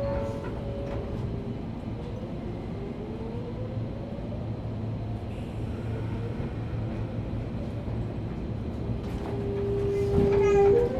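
Sotetsu New 7000 series train's Hitachi GTO-VVVF inverter and traction motors whining as the train accelerates away, faint tones gliding upward over a low running rumble, then a stronger steady tone near the end that starts to rise again. This car, MoHa 7357, is known for an abnormal motor sound.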